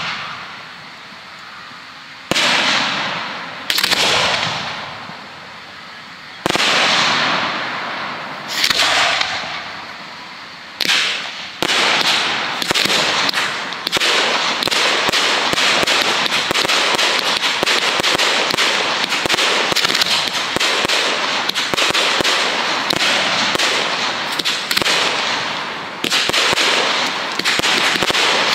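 1.3G display fireworks going off: single sharp bangs every couple of seconds, each fading out in a crackling tail. About twelve seconds in they give way to a dense, continuous crackle of many rapid reports.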